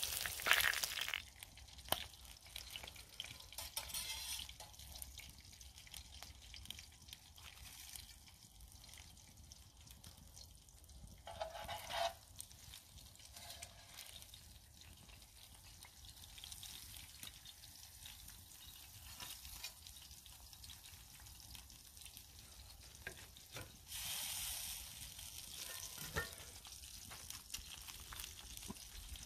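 Bacon, sausages and eggs sizzling on the hot steel plate of a Petromax fire bowl for about the first second. The sizzle then drops away to a quiet stretch with a few light knocks and scrapes.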